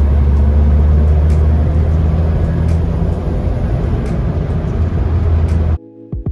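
Nissan Sunny Truck GB122 on the move: a steady low engine drone with road noise. It cuts off suddenly near the end as music comes in.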